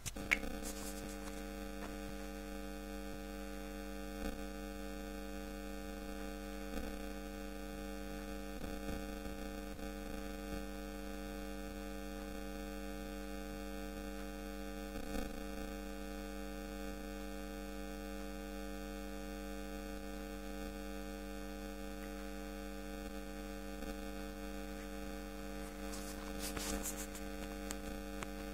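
Steady electrical hum made of several steady tones layered together, with a few faint clicks scattered through it.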